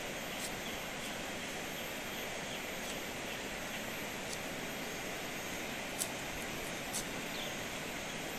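A rabbit being skinned with a blade: a few light, sharp clicks and ticks of the blade working against skin and fur, the sharpest about six seconds in. Under them runs a steady, even hiss of outdoor background noise.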